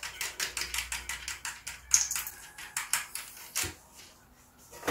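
Rapid light mechanical clicking, several clicks a second, with a few louder knocks, from hands working at a bicycle rear wheel's valve; it thins out near the end.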